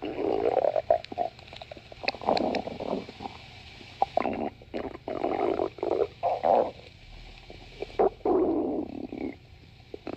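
Stomach growling in a string of short, irregular bursts, each under a second long, with brief pauses between them.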